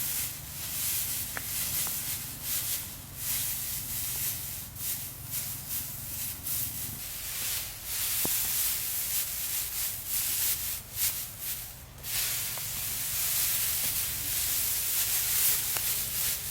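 Irregular scraping and rustling strokes, hand work on rough material, with a short pause about twelve seconds in.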